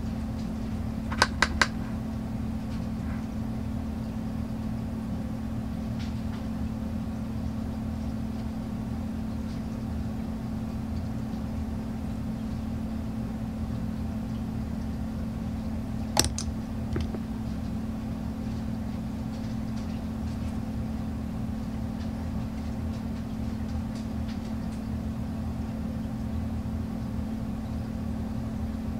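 Steady low mechanical hum, with three quick sharp clicks a little over a second in and a single click about halfway through.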